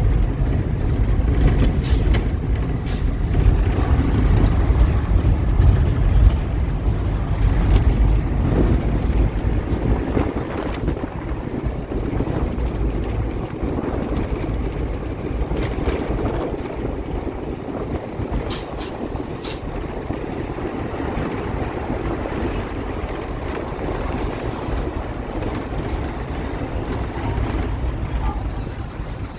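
Heavy truck engine running with a deep, steady rumble, louder in the first ten seconds and then settling, with a few short clicks.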